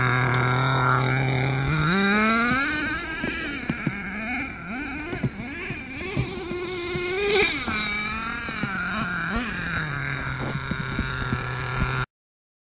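Traxxas T-Maxx RC monster truck's HPI F4.6 nitro engine idling, then revving up as the truck drives off, its pitch rising and falling with the throttle. It settles back to a steady idle near the end, and the sound cuts off suddenly.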